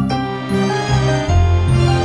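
Background music: held chords over a bass line that moves to a new note about twice a second.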